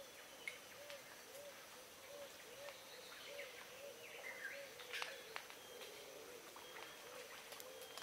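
Tongan birds calling faintly. One bird repeats a short, low note over and over, about once a second, while others give scattered higher chirps, with a few sharp clicks.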